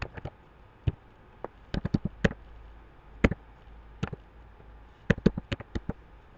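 Computer keyboard being typed on: irregular keystroke clicks, some in quick runs, with short pauses between.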